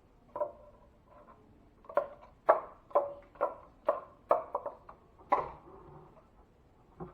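A series of light knocks or taps, about two a second through the middle, each with a short ring, plus a few single knocks before and after.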